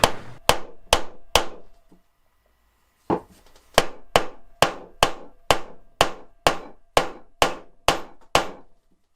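Repeated sharp hammer blows, evenly spaced about two a second, each with a short ringing tail: four strikes, a brief pause, then about a dozen more at the same pace.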